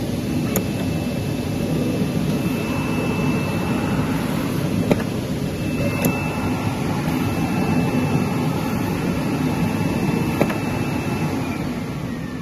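Single-head CNC oscillating-knife digital cutter running: a steady machine hum with a thin high whine that stops and starts, and a few sharp clicks.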